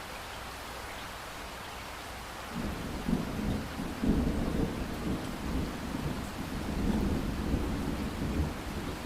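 Light rain falling with a steady hiss and drips; about two and a half seconds in, a low rumble of distant thunder sets in and rolls on, swelling and fading, to the end.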